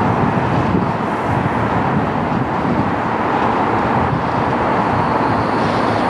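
Docklands Light Railway B2007-stock train running into a station platform: a steady rush and rumble of the train on the track, with a faint high whine coming in near the end.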